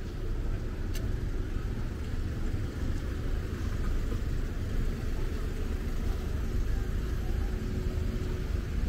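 Steady low outdoor rumble with a faint steady hum underneath; no single event stands out.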